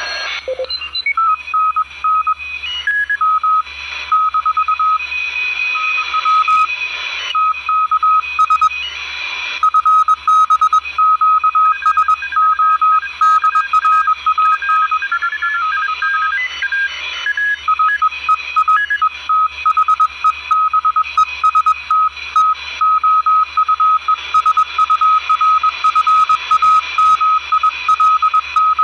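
Radio receiver audio of a Morse code (CW) signal: a single steady beep keyed on and off in quick dots and dashes, with other steady carrier tones and hiss underneath.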